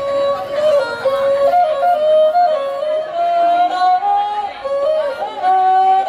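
Traditional Khmer wedding music: a two-string bowed fiddle (tro) plays a single melody line that steps and slides between notes.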